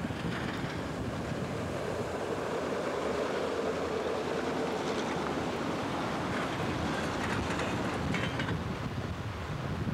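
Steady running noise of a moving vehicle heard from on board, with wind buffeting the microphone.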